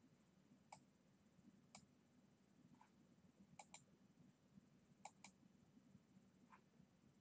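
Near silence broken by faint computer mouse clicks, about six of them, some in quick pairs.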